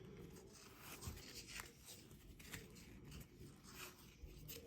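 Faint rustling and soft ticks of baseball trading cards being flipped through by hand.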